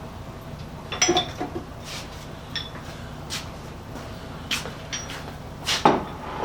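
Scattered clinks and knocks of hard objects being handled and set down, a few ringing briefly with a high metallic or glassy tone, the loudest near the end, over a steady low hum.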